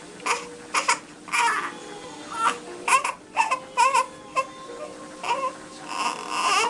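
Newborn baby fussing and crying in a string of short, wavering cries while being bottle-fed, ending in one longer cry. Quiet background music underneath.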